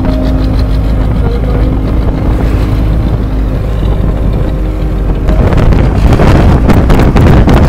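Engine of a moving road vehicle running steadily, heard from an open-sided passenger seat. About five seconds in, wind gusting on the microphone grows louder.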